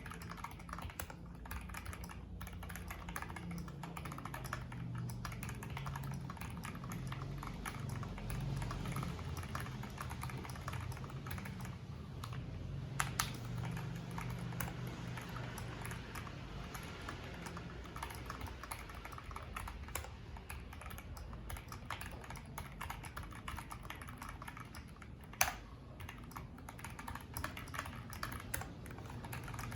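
Typing test on a mechanical keyboard fitted with ABS double-shot keycaps: a steady, rapid clatter of keystrokes, fairly quiet. Two sharper, louder clacks stand out, one about halfway through and one later on.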